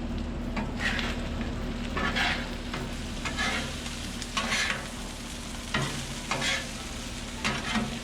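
Chicken pieces sizzling on a Blackstone flat-top griddle, with a louder scraping swish about once a second as they are stirred and moved around.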